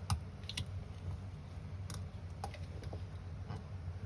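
Scattered light clicks and taps, about six of them at uneven spacing, over a steady low hum.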